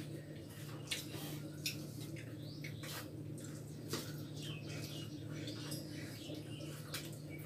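Quiet eating sounds: fingers mixing rice on steel plates, with a few light clicks and small mouth sounds, over a steady low hum.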